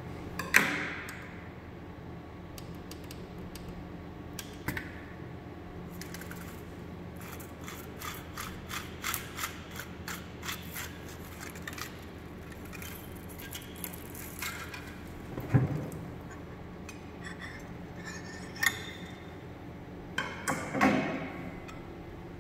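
Scattered clicks, snaps and knocks of a semi-automatic carrier-tape taping machine being set up by hand, as tape and reels are handled and parts adjusted, over a steady low hum. There is a sharp knock near the start, a quick run of light clicks in the middle, a heavier knock about 15 seconds in, and a clatter near the end as a cover-tape reel is fitted.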